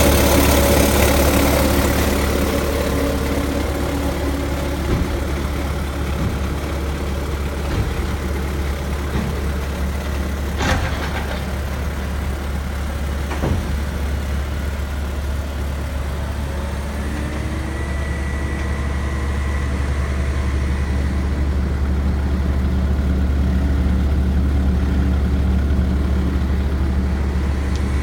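Bobcat T190 skid steer's Kubota turbo diesel engine running at a steady idle, with two sharp knocks near the middle.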